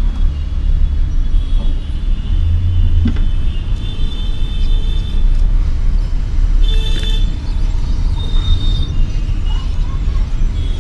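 Steady low rumble of a hot air rework station blowing on a phone's circuit board to melt the solder of the charging jack, with faint thin high tones above it.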